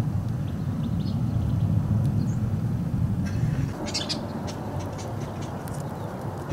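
A steady low rumble that eases a little about three seconds in, then birds chirping in quick, short, high calls through the second half.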